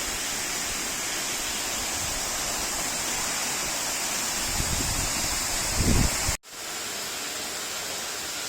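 Waterfall rushing steadily. Low rumbling on the microphone comes about two-thirds of the way in, then the sound cuts abruptly and the rushing carries on a little quieter.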